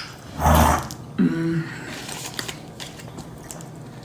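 A person bites into a chicken sandwich and chews close to the microphone, with small smacking clicks. A short hummed "mm" comes about a second in.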